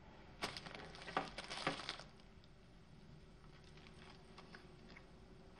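Paper burger wrapper crinkling as a hamburger is picked up out of it: a run of sharp crackles lasting about a second and a half, then faint biting and chewing.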